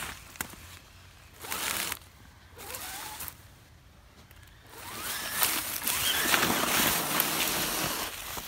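Radio-controlled crawler truck's electric motor whirring in short bursts, then running longer and rising in pitch from about five seconds in, with crunching of snow and dry leaves under the tyres and underfoot.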